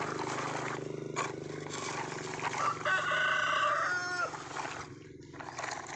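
A rooster crows once, starting a little under three seconds in, a drawn-out call that ends in a falling note. A low steady hum runs underneath in the first couple of seconds, then fades.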